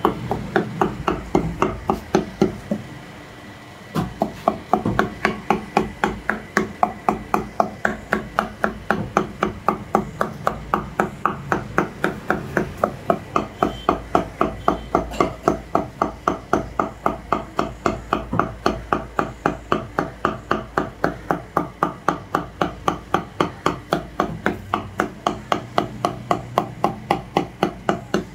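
Butcher's cleaver chopping mutton into keema on a wooden log block: steady, rapid strikes about three a second, with a brief pause about three seconds in.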